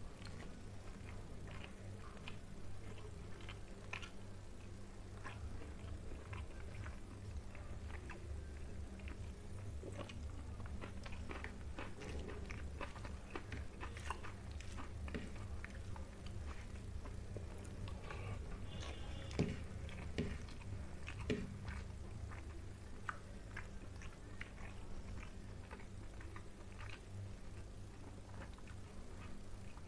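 Close-up mouth sounds of a person chewing soft rice and fish curry, with many small wet clicks and smacks and a few sharper ones about two-thirds of the way through. A steady low hum runs underneath.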